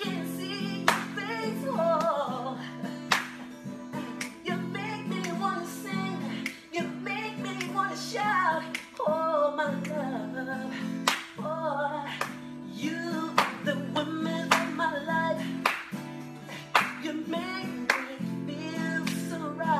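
A man singing, wordless runs and held notes, over a strummed acoustic guitar playing steady chords. Sharp percussive hits come every few seconds.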